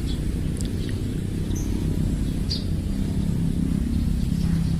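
Outdoor ambience: a steady low rumble with a few short, high bird chirps in the first half, and a faint low hum coming in about halfway.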